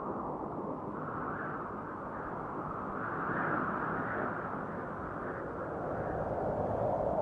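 Wind blowing over the microphone, a steady rushing that swells and eases every second or two.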